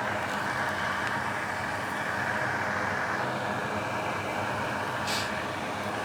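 Steady whooshing noise, like a fan or blown air, with a short higher hiss about five seconds in.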